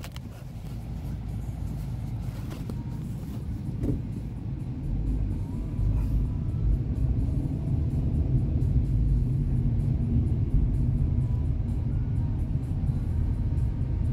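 A car's engine and tyre noise heard from inside the cabin while driving: a steady low rumble that gets a little louder about five seconds in.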